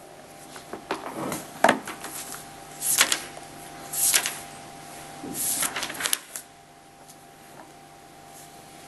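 A large book being set down and opened on a table, pages turned in several short rustles about two, three, four and six seconds in, then quieter. A faint steady hum lies underneath.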